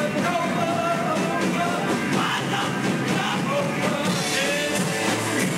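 Live rock band playing: a man sings over strummed acoustic guitar, electric guitar and a drum kit.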